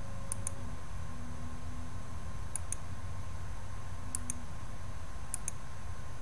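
Four double clicks about 1.5 s apart, each a press and release of a computer mouse button advancing the slides, over a steady low hum of the recording microphone.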